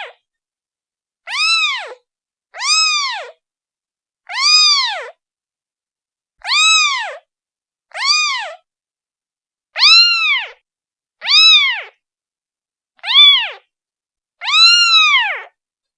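Newborn kitten, a day old, meowing over and over to call its mother: short high calls about every second and a half, each rising and then falling in pitch, with silence between.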